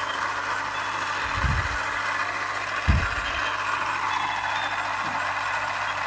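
Steady whirring hiss, with two soft low thumps about a second and a half and three seconds in as a small plastic toy iron is handled and set down on artificial grass.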